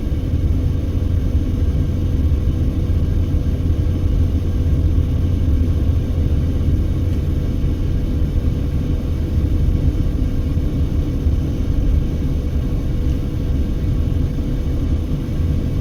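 Steady low rumble of road and engine noise inside a moving car's cabin, with a faint steady hum running under it.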